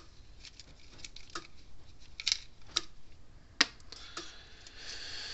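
Light clicks and taps from a fence charger's circuit board and capacitor being handled, about eight scattered short knocks with the sharpest a little past halfway, and a faint rustle near the end.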